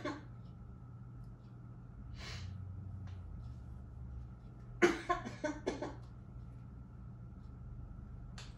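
A person coughing: one sharp cough at the start, a breath about two seconds in, then a run of four or five quick coughs around five seconds in.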